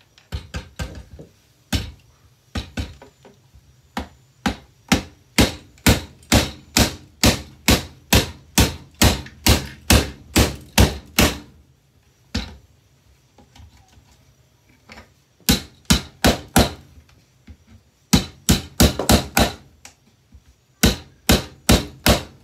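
Repeated hammer blows striking a Bissell handheld vacuum cleaner. There is a steady run of sharp hits at about two a second, then a pause and several shorter quick runs of strikes.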